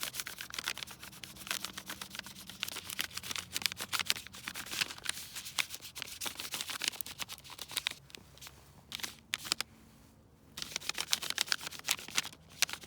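Crayon rubbed quickly back and forth on paper held over tree bark: a rapid scratchy rasping, with a short pause about ten seconds in before it starts again.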